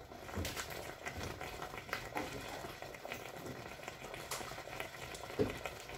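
Grated tomato and onion purée bubbling and crackling as it cooks in a hot pot with fried lamb, with a soft knock near the end.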